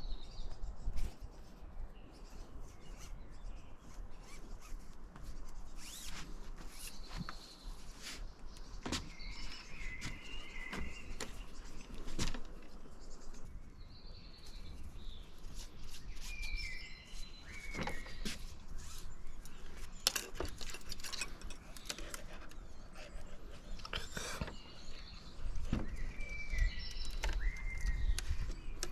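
Birds chirping outdoors in short calls every few seconds, with scattered sharp clicks and knocks and a low rumble underneath.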